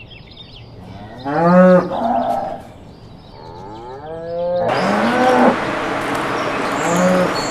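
Dairy cows mooing: about four long, low moos a second or two apart. A steady rushing background comes in about halfway through, with faint bird chirps at the start.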